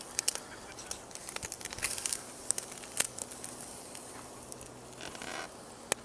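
Campfire crackling: irregular sharp pops and snaps of burning wood over a soft hiss, with a brief louder rush of hiss about five seconds in.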